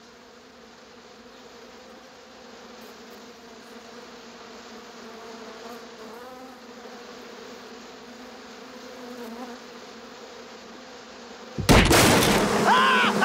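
Cartoon swarm of bees buzzing steadily, slowly getting a little louder. Near the end comes a sudden loud crash of wooden beehive boxes smashing, followed by a man yelling.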